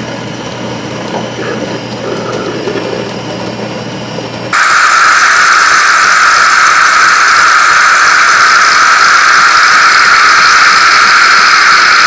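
Saeco Royal OTC espresso machine running with a steady humming whir, then about four and a half seconds in a loud, even hiss starts as the steam-driven cappuccinatore draws cold milk up its tube and froths it into the cup.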